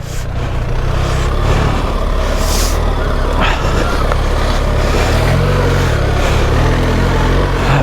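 BMW R 1300 GS Adventure's boxer-twin engine running as the bike is ridden along a trail, under a steady rush of wind and riding noise. The engine note rises briefly and settles again a little past the middle.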